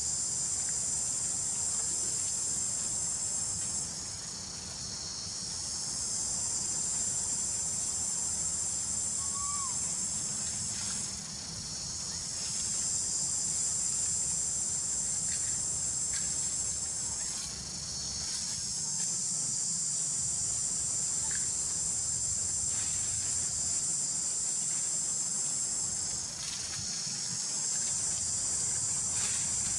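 Loud, high-pitched insect chorus buzzing steadily in long waves, dipping briefly every six or seven seconds before swelling again.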